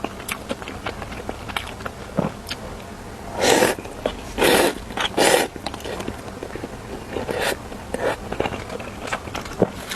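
Close-up eating sounds of instant noodles: three loud slurps a little after three seconds in, with small clicks and smacks of chewing and utensils throughout.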